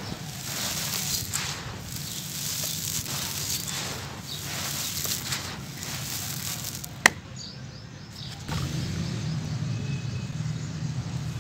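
Hands scooping and letting fall dry, gritty sand and gravel, a rustling, gritty pour that comes in repeated surges about once a second over a steady low hum. A sharp click comes about seven seconds in, after which the pouring stops and only the low hum is left.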